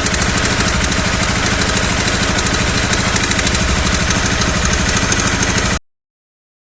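Honda CBR250R's single-cylinder engine idling steadily and evenly, without the tappet-like tick that its faulty cam chain tensioner used to cause, now that the tensioner has been replaced. The sound cuts off abruptly near the end.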